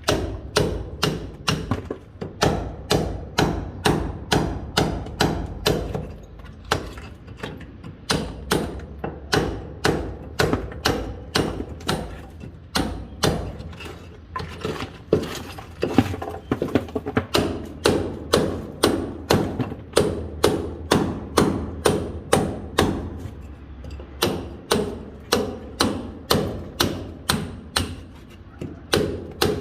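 Hammer blows on a chisel chipping into a masonry wall, struck steadily at about two to three blows a second in runs with short pauses between them.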